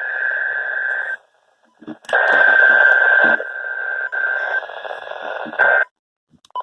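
Weather radio receiver static: a loud hiss with a steady whistle tone running through it, dropping out briefly about a second in and cutting off near the end.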